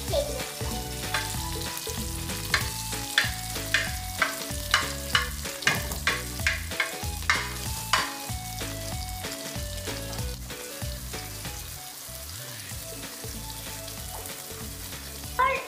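King fish steaks shallow-frying in hot oil in a pan: steady sizzling, with a run of sharp crackling pops over the first half that then settle back into the sizzle. A faint melody plays underneath.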